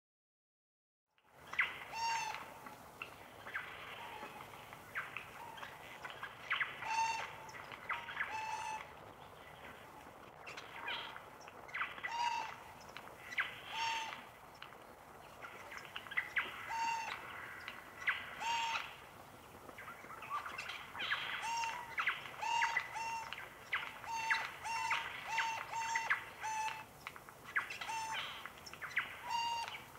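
Birds calling in a forest: a long string of short, repeated pitched call notes, coming irregularly a few seconds apart or in quick runs, starting about a second in.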